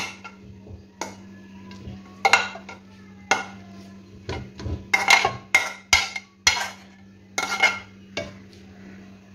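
A serving spoon scraping and knocking against metal pots as boiled rice is spooned from one pot into another: about a dozen sharp clinks at irregular intervals, several with a short metallic ring. A steady low hum runs underneath.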